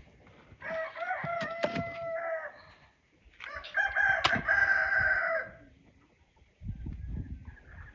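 A rooster crowing twice, each crow about two seconds long, with a few short clicks over it and low rustling near the end.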